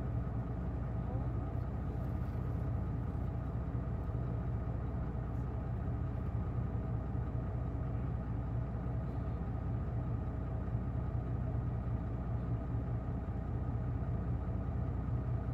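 Isuzu PKG-LV234L2 city bus's inline-six diesel engine running steadily, heard from inside the bus, with no change in pitch.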